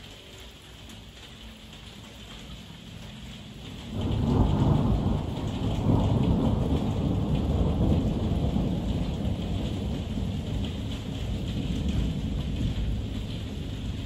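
Heavy rain falling steadily. About four seconds in, thunder breaks in with a sudden deep rumble that peaks over the next couple of seconds and then slowly rolls away under the rain.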